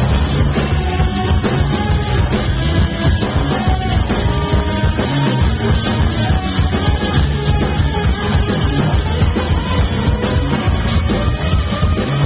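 Rock band playing live, with electric guitar, bass, drum kit and a singer, heard loud through a small camcorder's built-in microphone from the crowd.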